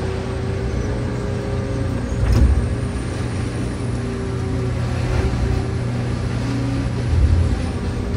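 Diesel engine and hydraulics of a Sennebogen scrap-handling machine running, heard from inside its cab, with a heavier knock about two seconds in and another near the end.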